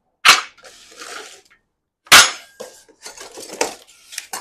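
Two sharp metal clanks about two seconds apart, then lighter clattering and knocking: the steel parts of a motorcycle jack being handled and set down as they come out of the box.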